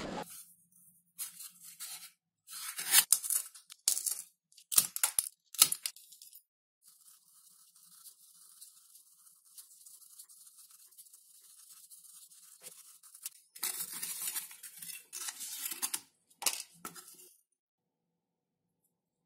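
Repeated short tearing and scraping noises in bursts of about a second, a cluster in the first six seconds and another a few seconds before the end, with a faint hiss in the quieter stretch between.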